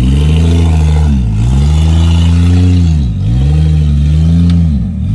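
Off-road 4x4 competition truck's engine revving hard, loud; the revs drop and climb back up three times, about every two seconds, as the driver works the throttle to get the truck to climb.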